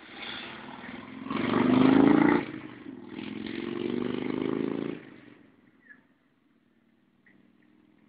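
A motor vehicle passes, engine and tyres swelling twice and then fading away about five seconds in.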